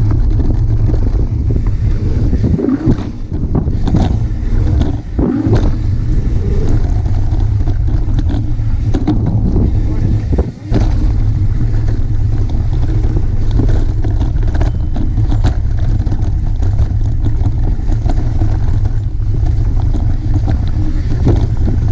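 Wind buffeting a bike-mounted action camera's microphone and a mountain bike's knobby tyres rolling fast over a dirt trail, a continuous low rumble with frequent clicks and rattles as the bike hits bumps.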